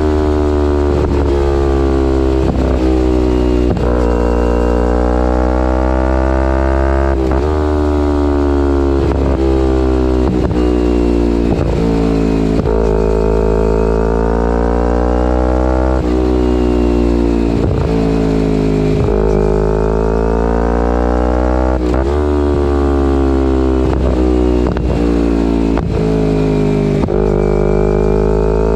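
2011 Kawasaki Ninja 250R SE's parallel-twin engine through a full Graves race exhaust, revving up and down under way, the pitch climbing and then dropping sharply again and again as it shifts through the gears. A steady low rumble runs underneath.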